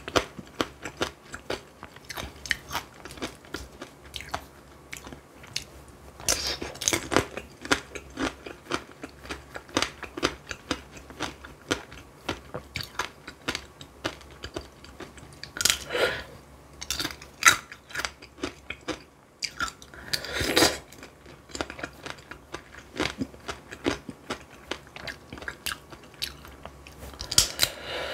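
Close-miked chewing and crunching of tanghulu, fruit coated in a hard, glassy sugar shell. It is a dense, irregular run of crisp cracks and wet chews, with several louder crunches scattered through.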